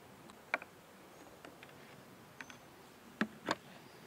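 A few scattered light clicks and taps of small plastic and metal items being handled on a plastic work table, with two louder knocks near the end, as a small plastic cup is put down and a brass foam-cannon head is picked up.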